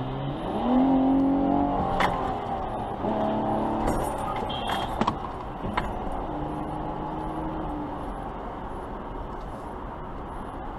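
Car driving on the highway: steady road and engine noise, with the engine note rising as the car speeds up about a second in. A few sharp clicks come around 2 and 5 seconds in.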